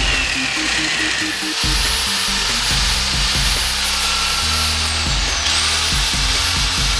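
Scheppach PM 1200 electric drill-mixer running with no load, its whisk paddle spinning freely in the air. It runs as a steady high whirr under background music with a repeating bass line.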